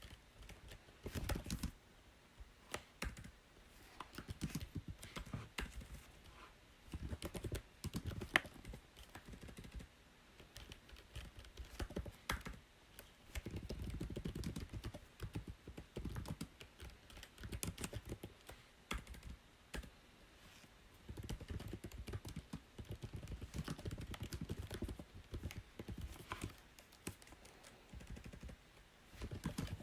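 Typing on a computer keyboard: runs of quick key clicks of a second or two, broken by short pauses.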